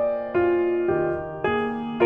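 Background music: soft piano or electric piano playing chords, a new chord struck about every half second and fading between strikes.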